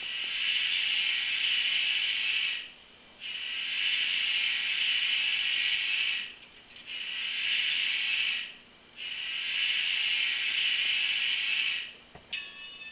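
Recorded steam locomotive whistle from a Soundtraxx Tsunami TSU-750 heavy steam sound decoder, played through a small speaker in an N-scale sound car. It is blown as the grade-crossing signal: long, long, short, long, with a hissy, tinny tone.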